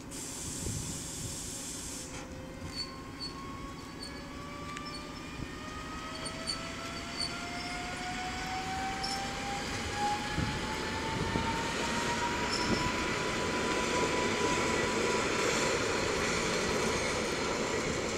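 Electric multiple unit pulling away from the platform, its traction motors whining in a slowly rising pitch as it gathers speed. Wheel and rail rumble grows louder toward the end.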